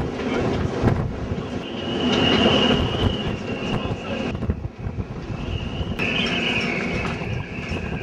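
Wind buffeting the microphone in an irregular low rumble. Over it is a high, wavering whine that drops out about halfway and comes back near the end.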